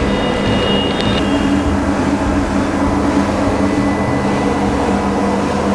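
PowerMax Fitness TD-N1 1.5 HP motorized treadmill running empty at its top speed, its motor and belt giving a steady, even hum.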